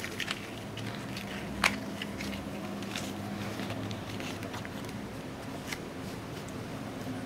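A Siamese kitten biting, clawing and kicking at a small toy cowboy hat on a bedspread: scattered small clicks and rustles, with one sharper click about a second and a half in.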